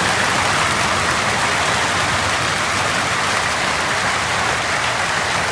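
Hail and heavy rain pelting down in a summer hailstorm: a loud, dense, steady wash of noise that does not let up.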